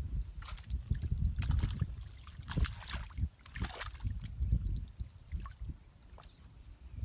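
Hands splashing and sloshing in shallow muddy water while feeling through the mud for fish: a run of irregular small splashes and squelches.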